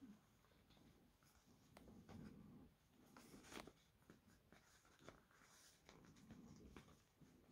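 Faint rustling and light scraping of a cardboard DVD digipak sleeve and its plastic wrapping being handled, with a few crisper rustles partway through.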